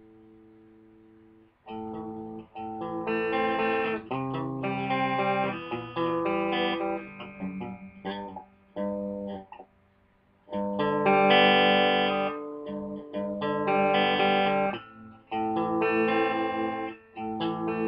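Electric guitar playing chords and picked notes that ring and are cut off in short phrases, with a held chord dying away at the start and a brief pause about halfway through.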